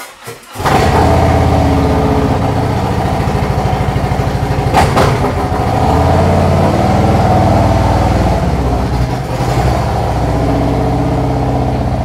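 A touring motorcycle's engine starts about half a second in, after a couple of clicks, and then runs steadily at idle. A single sharp clunk comes about five seconds in, and near the end the bike pulls away.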